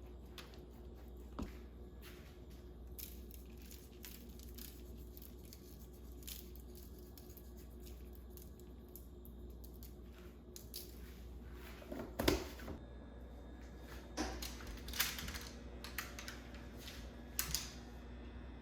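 Food-preparation handling sounds: scattered soft taps, scrapes and rustles over a low steady hum, with a few louder clusters past the middle.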